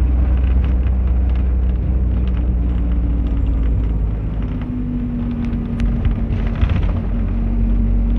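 Car driving, heard from inside the cabin: steady low engine and road rumble, with a brief rush of noise about six seconds in.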